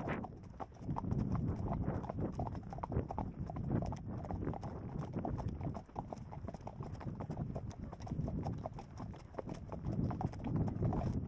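Hooves of a ridden horse striking a sandy dirt track, heard from the saddle as a continuous run of irregular thuds, with other horses in the line close by.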